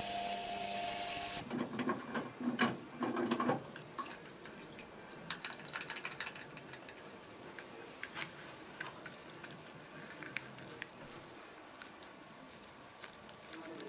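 An ultrasonic cleaner's bath runs with a steady hiss and hum, then cuts off suddenly about a second and a half in. Water then splashes and drips as the wet die-cast toy truck parts are lifted out of the bath, with light clicks and rattles as they are handled.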